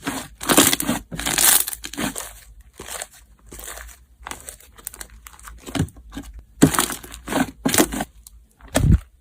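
Metallic slime mixed with ice being squeezed and pressed by hand, giving a run of short crackling, crunching strokes. The strokes come thickest in the first two seconds, thin out in the middle and pick up again near the end, where there is a low thud.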